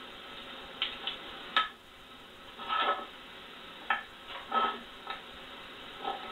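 Metal parts clinking and knocking as a lathe toolpost and a boring-bar holder are handled and fitted together on a workbench: about seven short knocks, uneven in spacing, over a steady hiss.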